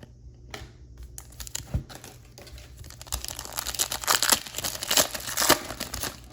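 A trading card pack's wrapper being torn open and crinkled, a dense crackling that grows louder in the second half.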